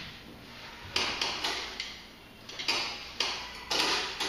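Irregular clicks and knocks as a telephone handset is lifted from its cradle and its buttons are pressed to dial.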